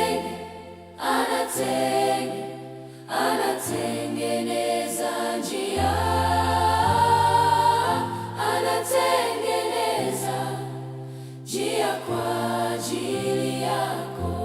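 Gospel music: choir voices singing phrases over a steady bass line, with no clear lyrics.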